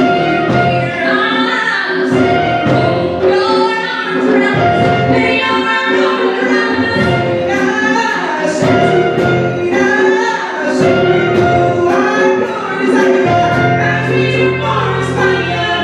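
A female vocal ensemble singing in harmony through handheld microphones, backed by a live band.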